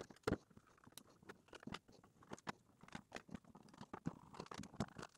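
Small precision screwdriver turning tiny screws out of a plastic gel blaster shell: faint, irregular clicks and ticks, with a sharper knock about a third of a second in.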